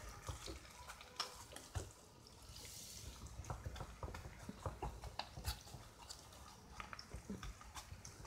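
Faint, irregular crackling and ticking of oil frying in a pan under lavash flatbread that is pressed down by hand, with a soft rustle of the bread.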